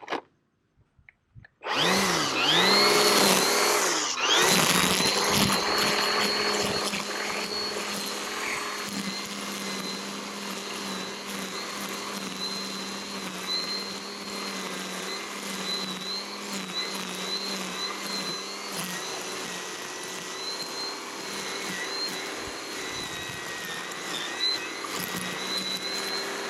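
Milwaukee battery-powered blower on a quick-connect power head starting up: a rising whine about two seconds in, then running steadily at a high whine, its speed wavering slightly.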